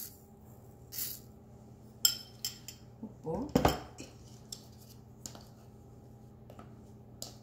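Spoon clinking and tapping against dishes as salt is spooned in: a handful of short, sharp clinks, the loudest about two seconds in, followed by a quick cluster and then scattered light taps.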